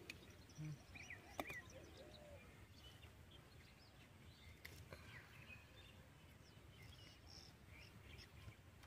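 Near silence: faint open-field ambience with scattered short bird chirps over a low steady rumble, and a few faint clicks.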